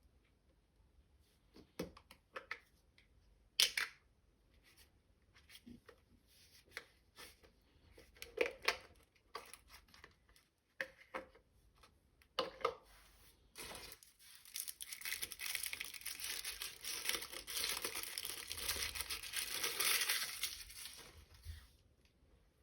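Toy packaging being opened by hand: scattered crinkles and small clicks, then a sustained stretch of packaging tearing and rustling that starts about 14 seconds in and stops shortly before the end.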